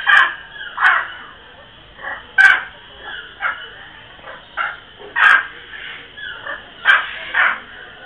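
Hyacinth macaws calling: a run of short, loud squawks, about one a second at uneven intervals.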